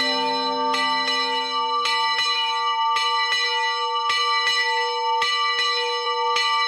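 Church bell ringing, struck over and over about twice a second, each strike ringing on into the next.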